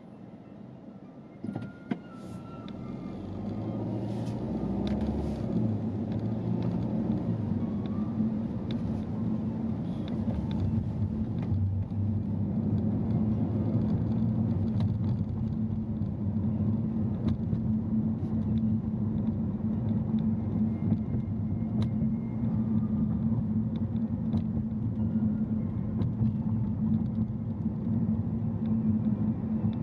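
Car driving on a city street: engine and road noise swell over the first few seconds as it picks up speed, then hold at a steady low rumble.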